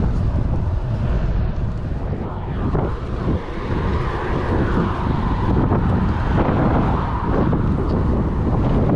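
Wind buffeting the camera microphone on a moving mountain bike: a steady, loud rushing rumble.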